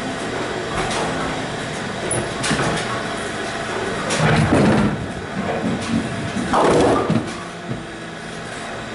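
Bowling alley din: pinsetter machinery working and balls and pins clattering, with two louder crashes about four and a half and seven seconds in, over a murmur of voices.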